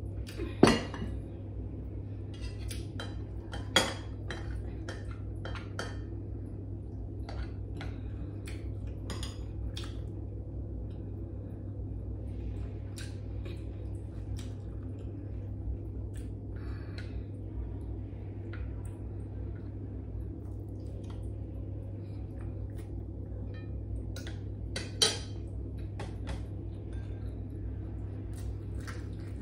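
Bowls and cutlery clinking on a table. A bowl is set down with a sharp knock about half a second in, with another knock near four seconds and one late on. Between them a spoon and fork tap and scrape in a bowl, over a steady low hum.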